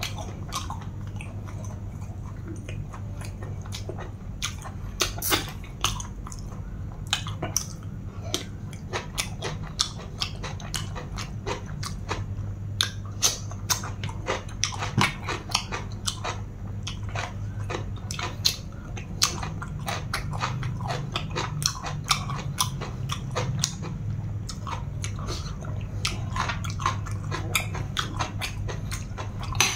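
Close-up eating sounds: a person chewing a spicy long-bean salad, with many irregular wet mouth clicks and crunches. A steady low hum runs underneath.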